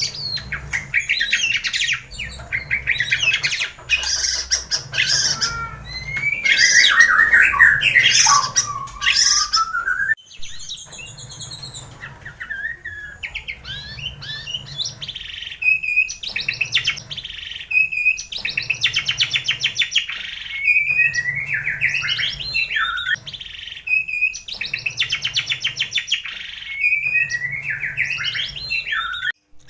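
White-rumped shama (murai batu) song: a fast, varied run of loud whistles, rapid trills and harsh squawky phrases, with a brief break about ten seconds in, played as a provocation recording to get a caged shama singing.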